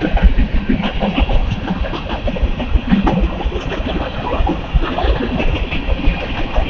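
Freight train's covered grain hopper cars rolling past at close range: a steady low rumble with irregular clattering knocks from the wheels on the rails.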